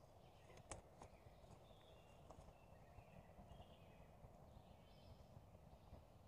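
Near silence: faint woodland ambience with faint, distant birdsong in short chirps and a single soft click a little under a second in.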